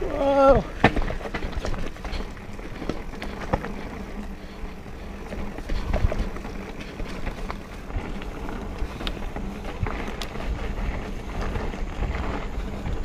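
Santa Cruz Tallboy mountain bike ridden along a dirt singletrack trail: a steady low rumble from the tyres, with scattered clicks and knocks from the bike over bumps. A rider's short 'whoa' at the start.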